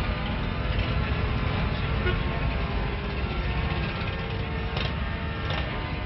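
Church music in sustained, slowly changing chords, heard through the heavy low rumble of an old film soundtrack.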